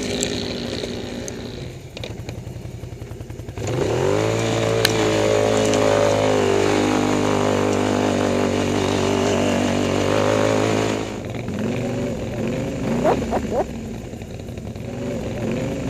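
ATV engine working through deep snow: revs fall, then climb sharply about four seconds in and hold high and steady for several seconds before dropping back to lower, uneven revs with a few short blips near the end.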